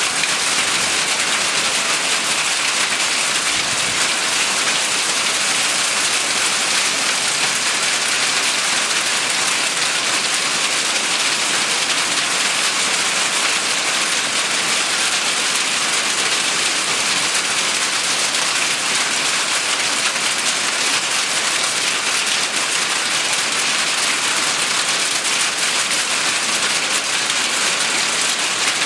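Small hail falling steadily: a dense, even hiss of countless small impacts.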